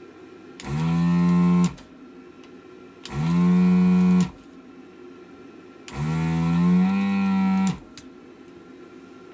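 Desoldering gun's vacuum pump running in three short bursts, the last one longer, each rising quickly in pitch as the motor spins up, holding a steady hum, then cutting off. This is the pump sucking molten solder off the switch pins on a mouse's circuit board.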